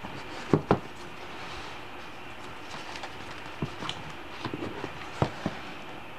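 Pages of a pop-up book being handled and turned, the paper pop-ups rustling as they unfold, with several sharp taps and soft thumps of the board pages. The loudest taps come about half a second in and again about five seconds in.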